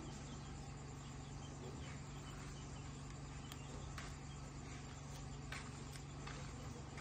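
Faint early-morning rural ambience: insects chirping softly over a steady low hum, with a few light clicks.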